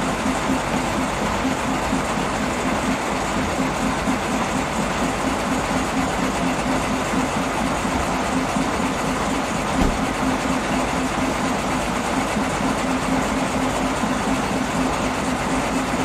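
Diesel engine of a standing narrow-gauge locomotive idling steadily with an even throb. A single low knock about ten seconds in.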